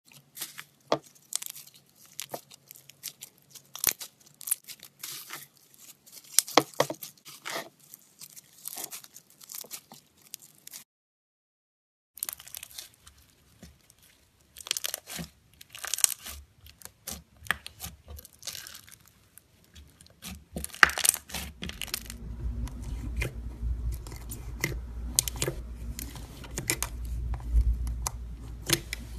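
Hands squeezing and stretching foam-bead slime (floam), giving fast runs of crackling, popping clicks. After a second of silence about eleven seconds in, a bead-speckled slime is squished with similar crackles. In the last third, thick slime is worked in a plastic jar over a steady low rumble.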